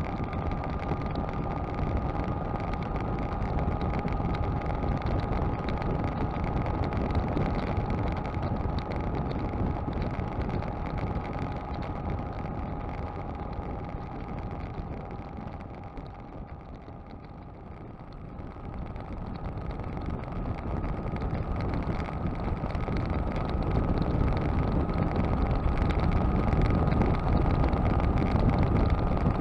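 Motorcycle cruising on a highway: steady engine, tyre and wind noise with a thin steady whine over it. It eases off and gets quieter a little past the middle, then builds back up louder toward the end.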